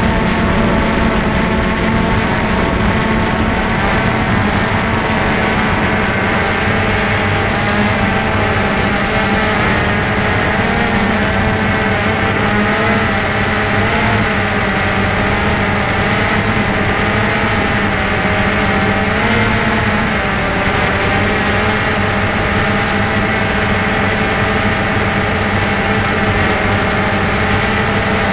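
DJI Phantom 2 quadcopter's four electric motors and propellers, heard close from the camera mounted on the craft, humming steadily in flight as a stack of tones whose pitch wavers slightly as the throttle shifts.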